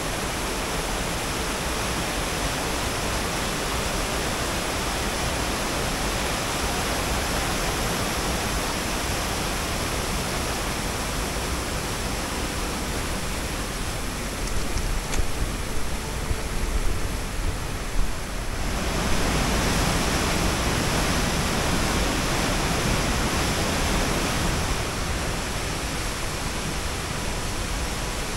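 Steady rush of the Vouraikos River's white water running through the gorge, with a few brief louder bumps in the middle. About two-thirds of the way through the rush turns fuller and deeper.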